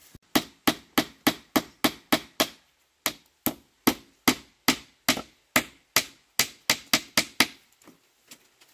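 Rapid, regular strikes of a hand tool, about three a second, in two runs with a short pause between them, stopping shortly before the end.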